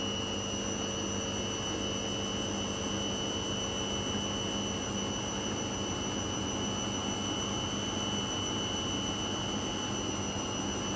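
Hoover front-loading washing machine on its spin cycle, the motor and drum giving a steady whir and hum that holds the same speed throughout.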